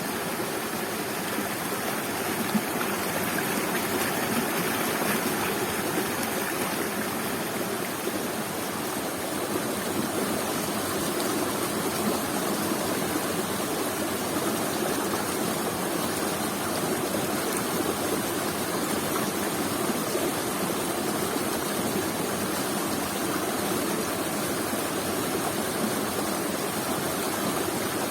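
Waterfall water pouring and splashing in a steady rush.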